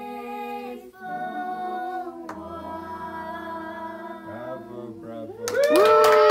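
Female voices singing a cappella in long held notes, swelling into a loud sustained final note about five and a half seconds in, as hand clapping starts.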